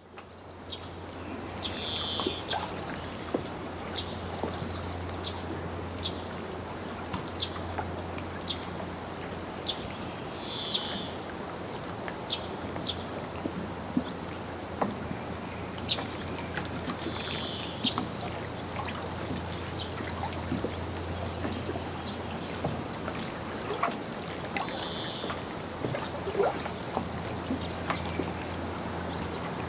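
Water lapping against a boat dock, with many short slaps and splashes over a steady wash. A bird gives a short call four times, about every seven or eight seconds, among faint high chirps.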